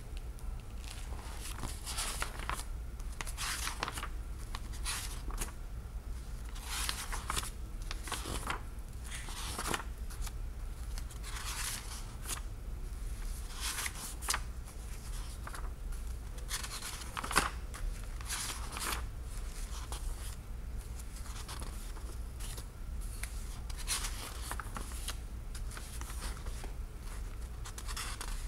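Pages of a thick book with stiff, aged-looking paper being turned one after another, each turn a dry papery swish, about one every second or two. A single sharp click stands out a little past the middle.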